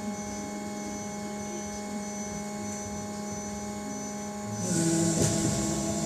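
Steady electrical hum inside a BKM 221 trolleybus, with several constant tones, as it stands. About four and a half seconds in it gets louder: a hiss and a new whine from the electric traction drive come in as the trolleybus starts to move off.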